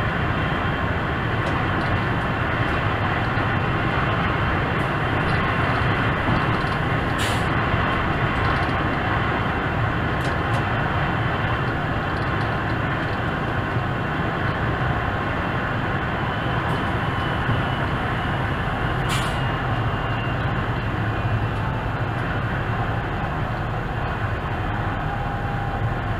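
ÖBB class 4124 Bombardier Talent electric multiple unit running at speed, heard from the driver's cab: a steady rumble of wheels on rail with a low traction hum. Two short sharp clicks cut through, one about a quarter of the way in and one about two-thirds through.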